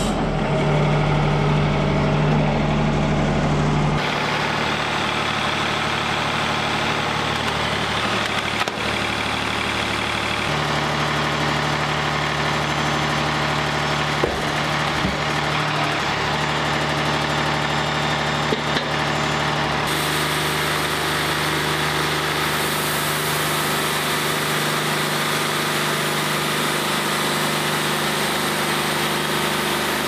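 Engine of a Wood-Mizer LT40 hydraulic band sawmill running steadily, a low, even hum. The sound shifts abruptly about 4, 10 and 20 seconds in.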